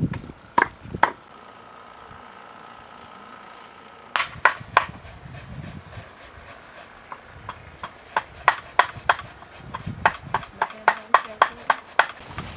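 Knife chopping food on a cutting board in separate sharp strikes: a few at the start, a pause, then quicker runs of about three chops a second toward the end.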